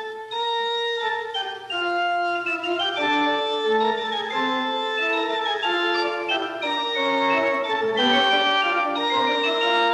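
Organ playing contrapuntal music, several held voices moving at once in steady, even notes.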